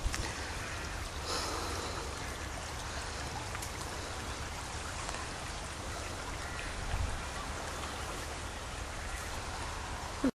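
Small woodland stream flowing and trickling steadily over its bed, with a low rumble underneath. The sound cuts off suddenly near the end.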